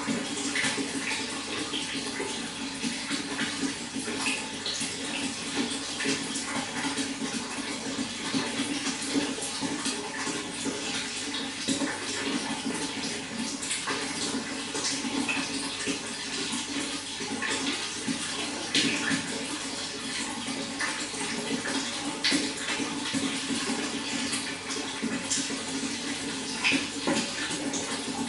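Steady running water, with many small splashes and drips through it.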